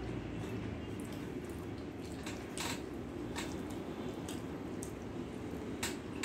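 Fingers mixing rice with dal and aloo posto on a steel plate, and eating, giving soft wet squishing sounds. A few short sharp clicks or smacks come about two and a half seconds in, near three and a half seconds, and near the end, over a steady low background rumble.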